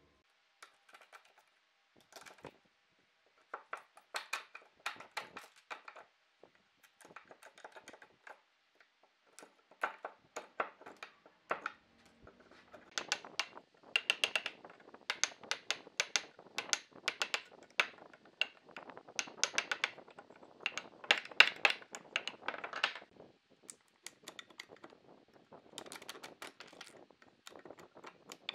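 Hand chisel cutting a notch in a wooden board: irregular runs of sharp taps and clicks as the blade is struck and levered and chips split away, busiest and loudest in the middle.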